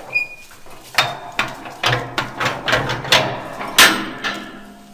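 Metal clanks and rattles from the steel firebox door of a 200 kW wood-fired boiler as its bar-handle latches are turned and the door is swung open: a run of sharp knocks, the loudest near the end.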